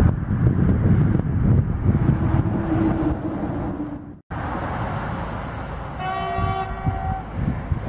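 Low rumble of a passing freight train with wind on the microphone, which cuts off abruptly about four seconds in. Then an approaching BLS Re 485 electric locomotive sounds one horn blast of about a second, over wind noise.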